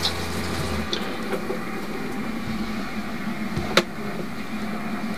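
Steady machine hum, with a single sharp metallic clink about four seconds in as the fuel filter's metal cup is set down in a stainless steel bowl.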